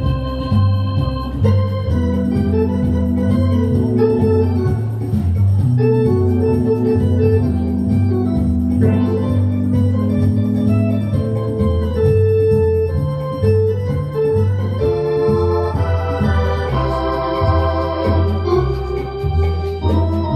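Hammond organ playing live: a bass line moving under sustained chords, with a melody on top.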